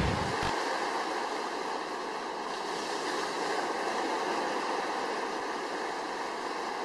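Steady rushing of water pouring down a stepped concrete dam spillway: an even hiss with little deep rumble, a few faint steady tones running through it. A small click about half a second in.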